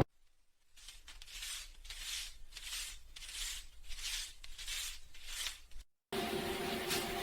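Paper banknotes being handled, with a rhythmic swishing of about eight strokes evenly spaced. About six seconds in it cuts off, and a steadier hissing sound with a faint hum takes over.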